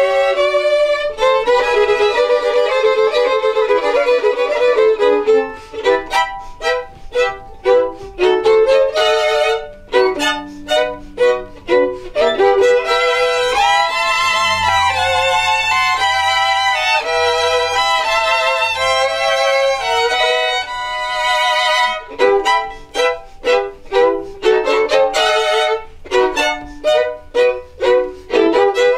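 Three violins playing an instrumental piece together, held notes with vibrato alternating with stretches of short, separate notes.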